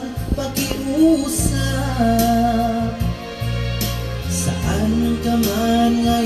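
A song with singing over a steady bass line, played through the Konzert AV-502B karaoke amplifier as a test that the repaired left channel now works.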